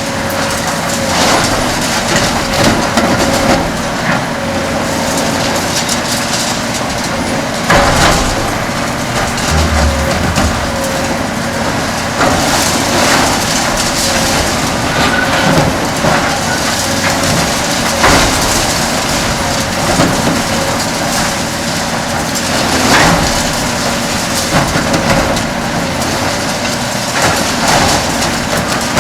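Kobelco SK 500LC-10 demolition excavator working, its six-cylinder Hino diesel and hydraulics running with a steady whine, while the Verachtert VHC 60 concrete shear crunches through concrete. Repeated cracks and knocks of breaking concrete and falling rubble come every few seconds.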